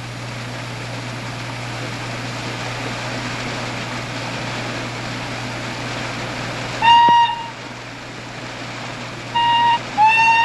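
Steam donkey engine giving off a steady hiss of escaping steam. About seven seconds in its steam whistle blows a short blast, then near the end a brief toot and a longer blast that starts with a slight upward slide in pitch.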